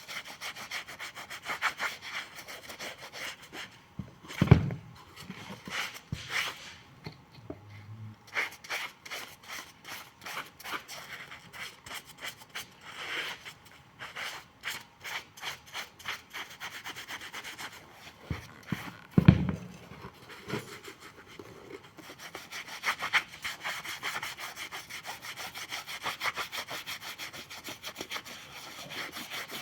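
A shoe sole being scraped or sanded by hand in quick repeated rubbing strokes. A louder knock comes about four seconds in and another, the loudest sound, about nineteen seconds in.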